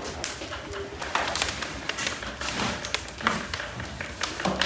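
Irregular taps, knocks and crackles from the wood fires under a row of big pilaf cauldrons (kazans), with kitchen clatter.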